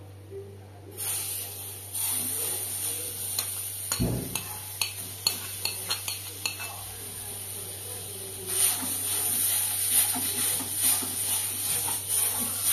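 Food frying in an aluminium pan on a gas stove, with a high sizzling hiss that starts about a second in and grows louder later on. A metal spoon clicks and scrapes against the pan as the food is stirred, with a heavier knock about four seconds in.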